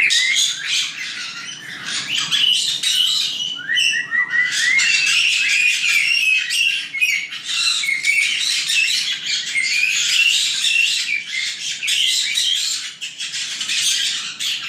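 A flock of young white-bellied caiques chattering all at once: an unbroken jumble of overlapping high chirps, squawks and short squeaky pitch slides.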